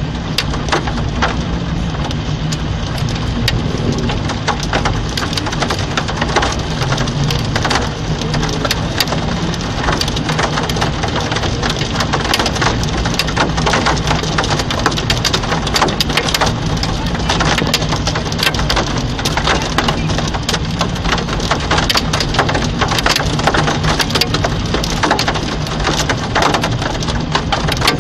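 Heavy rain pelting down in a severe thunderstorm: a loud, steady hiss packed with many sharp strikes on hard surfaces.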